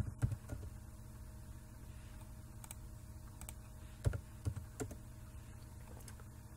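A few scattered computer keyboard key presses, in a small cluster just after the start and another around four seconds in, over a low steady hum.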